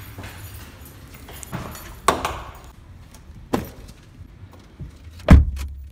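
Footsteps and handling knocks while walking to a car, with two sharp knocks, then a car door shut with a heavy thump near the end.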